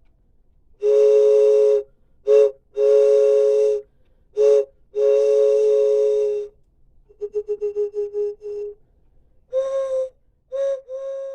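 Train whistle sounding a two-note chord in long and short blasts, then a quick run of short toots on one note, then a few short blasts on a higher note.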